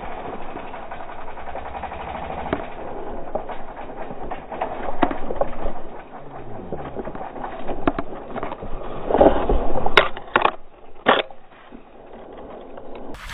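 Dirt bike engine running on a trail, its note dropping about six seconds in, then a series of sharp knocks and scrapes as the bike goes over among rocks, loudest about nine to ten seconds in.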